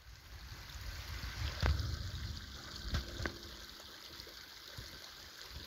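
Steady rushing of running water, with a low rumble underneath and a few faint clicks.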